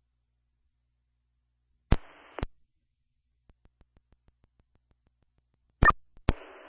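Scanner radio channel between messages: a radio keys up about two seconds in with a sharp click, half a second of static hiss and another click as it drops. A run of faint fast ticks fades out, then two more sharp clicks near the end as the channel opens again and the hiss comes back on.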